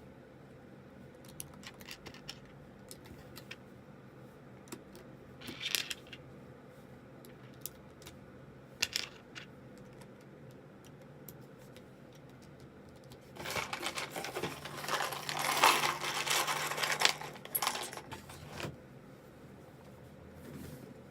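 Plastic keycaps clicking against a zz96 mechanical keyboard as they are pulled off and pressed back on. There are scattered single clicks and small clusters at first, then a dense clatter of clicks for about five seconds past the middle.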